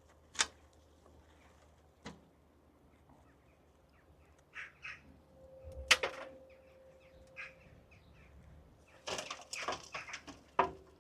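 Handling of soil and potatoes: scattered short rustles and a few sharp knocks, then a burst of rustling and knocking near the end.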